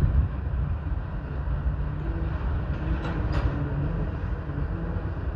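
BNSF freight train rolling by, a steady low rumble of wheels on rail.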